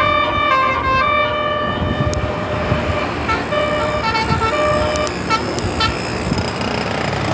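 A bus's multi-trumpet musical air horn (telolet basuri) playing a tune over engine rumble: a phrase of held and changing notes, a short pause, then a second phrase of quick short notes.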